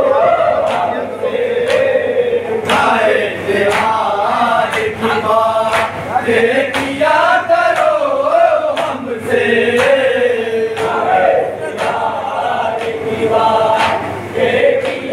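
A group of men chanting a nauha (Shia mourning dirge) together, over a steady beat of chest-beating (matam) strikes, just under two a second.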